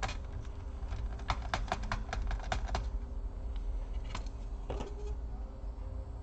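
Light, sharp clicks and taps from handling a laptop during reassembly: a quick run of about eight clicks, then two single clicks a little later. There is a steady low hum underneath.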